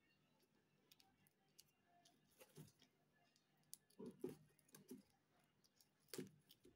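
Small scissors cutting and scraping along the packing tape on a cardboard shipping box: faint, scattered clicks and scratches, with a cluster about four seconds in and another near the end.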